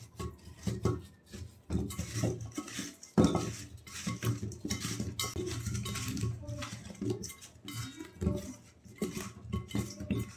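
Thick pumpkin slices tossed and rubbed by hand in a stainless steel bowl while being mixed with salt and turmeric, knocking and sliding against the metal in an irregular clatter, with a louder knock about three seconds in.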